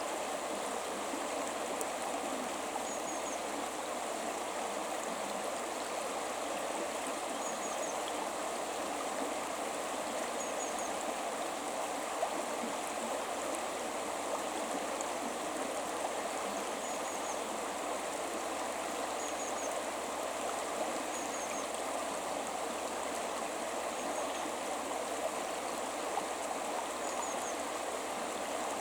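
River water flowing steadily over rocks, a continuous rushing babble. Faint short high chirps recur every couple of seconds.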